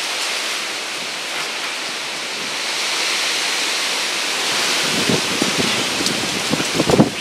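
Gusty storm wind rushing steadily through tree foliage, from the outer bands of a hurricane. From about five seconds in, gusts buffet the microphone in low rumbling thumps, the strongest just before the end.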